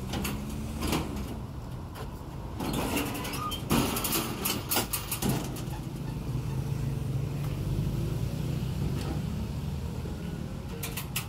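Metal clanks and rattles of a small truck's aluminium rear box being opened, its tailgate and side panels let down, with several sharp knocks about four to five seconds in. A steady low rumble runs underneath.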